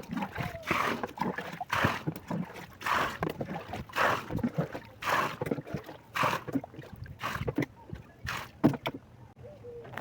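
Water sloshing and splashing in repeated bursts, roughly once a second, dying down near the end.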